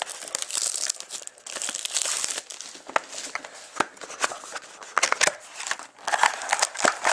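Plastic wrapping of a hockey card pack crinkling and tearing as it is opened by hand, in repeated bursts with a few sharp clicks.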